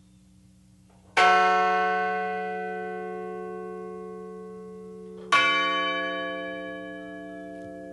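A memorial bell is struck twice, about four seconds apart. Each stroke rings out with a rich set of tones and fades slowly, a remembrance toll for a victim whose name has just been read.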